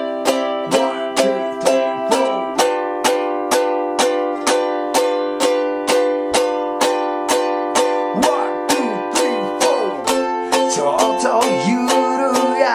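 Ukulele strummed in an even rhythm of about four strokes a second, playing chords with a melody on the first string; the chord shifts about two and a half seconds in and again near ten seconds.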